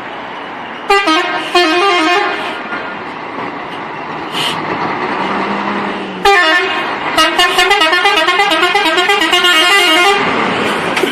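A musical vehicle horn plays two short tunes of quickly changing notes, a brief one about a second in and a longer one of nearly four seconds starting about six seconds in, over steady background noise.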